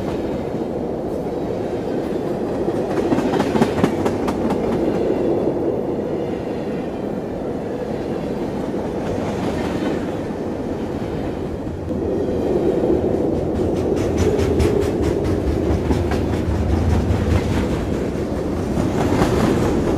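Sri Lankan diesel-hauled passenger train running along the track, with a steady rumble and its wheels clacking over the rail joints. The clacking is thickest near the end.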